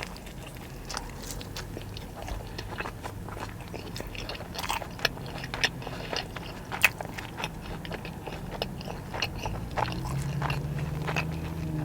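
Close-up chewing of a hand-breaded chicken tender wrap: irregular crunchy bites and wet mouth clicks.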